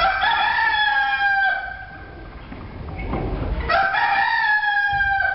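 A rooster crowing twice, two long calls of about a second and a half each, the second starting about two seconds after the first ends.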